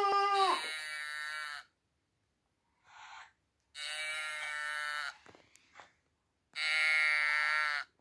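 An electronic sound book's small speaker plays a short cartoon teddy-bear 'oo-aah' sound three times, as the teddy button is pressed again and again. The sound is thin and tinny, with no bass, and there are a few light clicks of handling between the second and third plays.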